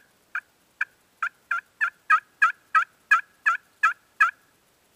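Turkey pot call worked with a wooden striker, sounding a run of about thirteen hen yelps that come faster and grow louder, then stop about four seconds in.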